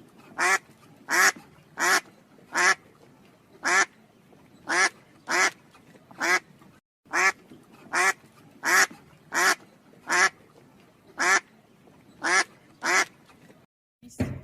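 An animal giving short calls over and over, about one to two a second, with two brief breaks.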